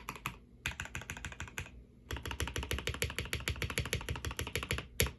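Typing on a KBD67 Lite R3 mechanical keyboard with a polycarbonate plate, NK Blueberry tactile and Aqua King linear switches and ePBT PBT keycaps, the case filled with foam and polyfill. The keystrokes come in three quick runs with short pauses between them, the last run the longest and fastest, followed by one louder single keystroke near the end.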